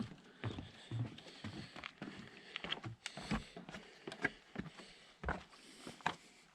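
Footsteps of people walking, an uneven step about every half second.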